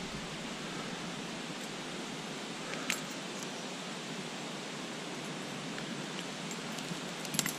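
Steady rushing outdoor noise, with two faint clicks: one about three seconds in and one near the end.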